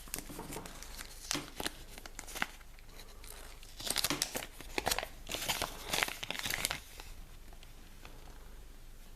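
A wrapper being torn open and crinkled by hand, in scattered crackles at first, then a dense spell of crinkling in the middle that settles down after about seven seconds.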